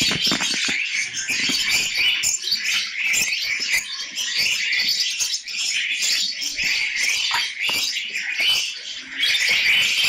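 A flock of caged small parrots (lovebirds, budgies and cockatiels) chirping and chattering continuously, many short overlapping calls.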